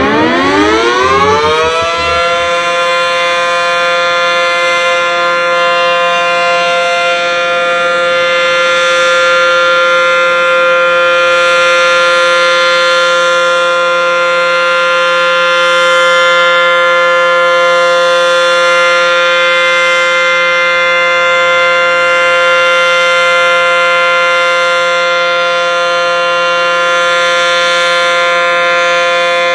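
ACE Banshee155 warning siren winding up over the first two seconds to full pitch, then holding one loud, steady tone.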